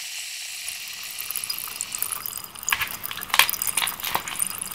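Fizzing, crackling sound effect: a steady high hiss, then irregular little pops and crackles from about two seconds in.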